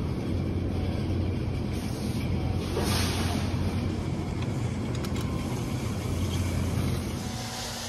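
Wide dust mop pushed along a tiled floor, a steady low rumbling swish that eases off about seven seconds in.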